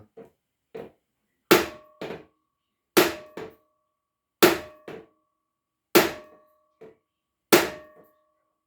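Hammer blows pounding on the seized piston of a 1952 Scott Atwater 7.5 hp outboard to free it: five hard metallic strikes, about a second and a half apart, each ringing briefly and followed by a lighter rebound tap.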